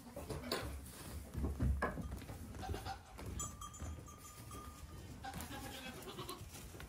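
Goat kids bleating, with one long, high bleat held for about two seconds midway, while their hooves thump and knock as they jump off a hay bale and run about the barn floor. The heaviest thumps come about a second and a half in.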